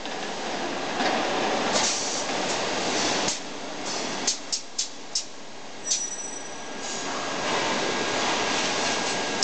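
Automatic elbow-welding machine for air-duct elbows at work: a steady noisy hiss that swells and dips, with a handful of sharp clicks about halfway through and a faint steady whistle from about six seconds in.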